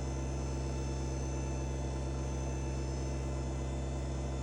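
Kubota BX24 compact tractor's three-cylinder diesel engine running steadily at a constant speed, an even hum, keeping hydraulic pressure on the backhoe.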